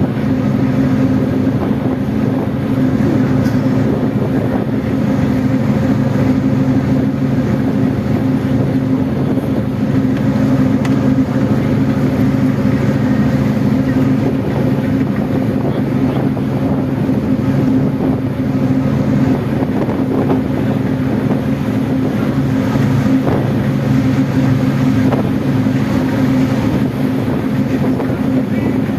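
Engine of a river sightseeing boat running steadily, heard from on board as an even, low hum.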